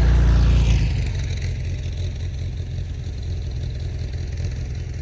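Air-cooled Volkswagen Bay Window bus engine running, louder for about the first second and then easing to a steady lower note.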